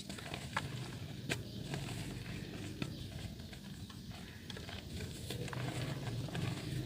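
Soft dirt crumbling into water, with scattered sharp cracks and clicks over a continuous crumbly patter.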